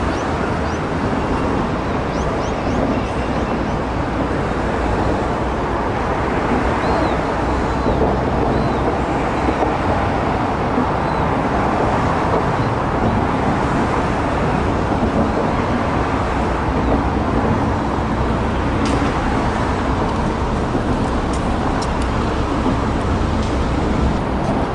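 Steady rumble of traffic and engines, with a few faint high chirps in the middle.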